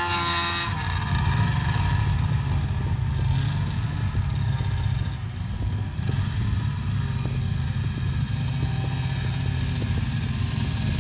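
Snowmobile engines running: a higher engine note stops about a second in, leaving a steady low engine drone with a few faint clicks.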